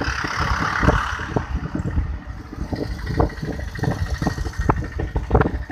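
Wind buffeting an open-air microphone in irregular thumps and gusts, with a hissing gust near the start.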